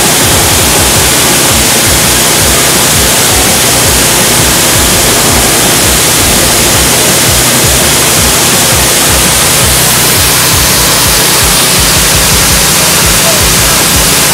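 Coffee huller driven by a small petrol engine, running steadily under load as dried coffee cherries are fed in, a loud, even machine noise.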